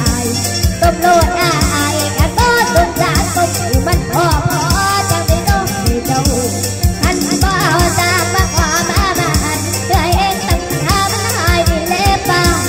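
A young girl singing into a microphone over backing music with a steady beat.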